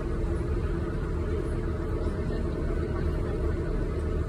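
A cross-river ferry's engine running with a steady low rumble while under way.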